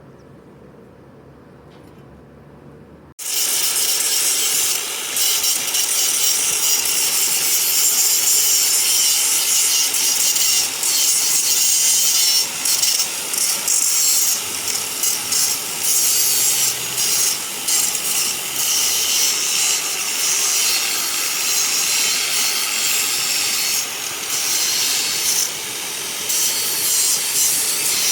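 Electric arc welding: the arc crackling and hissing, starting suddenly about three seconds in and running with a few short breaks in the second half, where the arc goes out and is struck again.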